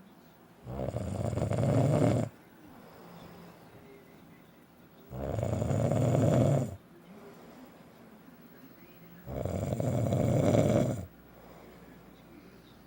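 A man snoring loudly in his sleep: three long snores about four seconds apart, each growing louder over a second and a half and then cutting off, with quiet breathing between.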